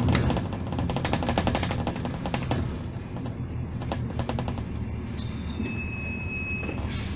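Inside a Volvo Super Olympian double-decker bus, the diesel engine hums steadily. For the first two and a half seconds a fast rattle of clicks runs over it, and later come a few brief thin high-pitched squeals.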